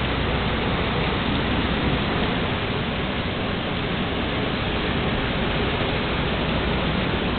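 Heavy hurricane rain and wind, a steady, even rushing noise.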